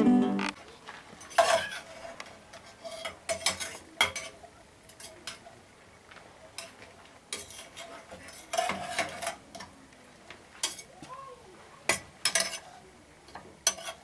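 A metal spoon or other utensil clinking and knocking against a cooking pot and dishes as food is stirred, in scattered separate strikes a second or more apart.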